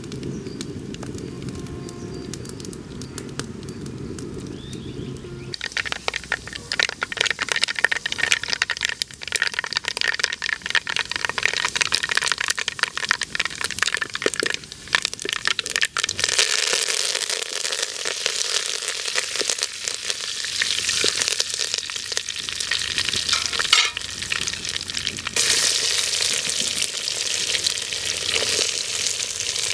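Hot oil in a clay pot: from about six seconds in, tempering seeds crackle and spatter as they are stirred, settling into a steady sizzle. Near the end the sizzle grows louder as sliced shallots and curry leaves go into the oil.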